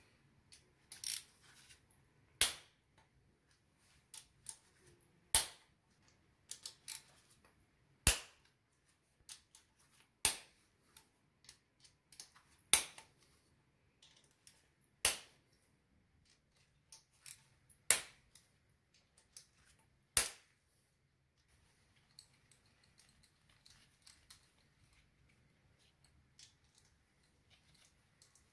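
Sharp metallic clicks from a hex key on the bolts of a motorcycle engine side cover, one loud click every two to three seconds with smaller ticks between. After about 21 seconds only faint small clicks and rattles remain.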